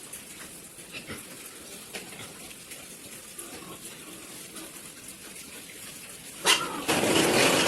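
Pig farm pen sounds: faint scattered knocks and clatter, then about six and a half seconds in a sudden loud rushing noise that keeps on.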